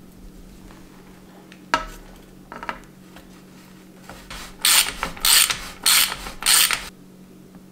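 Ratchet wrench clicking in four short runs as it turns a bottom-bracket tool, threading a bottom-bracket cup into a steel bicycle frame's shell. A single sharp metal click comes a little under two seconds in.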